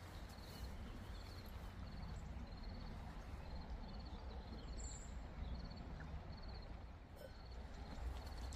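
Riverside ambience: a steady low rush of flowing water, with a short high chirp repeating evenly about once a second.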